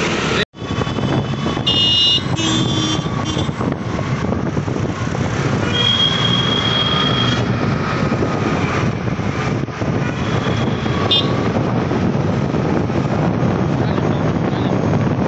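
Dense road traffic heard from among the moving vehicles, with several car horns honking: two short honks about two seconds in, a longer steady honk of about a second and a half near the middle, and a brief one later.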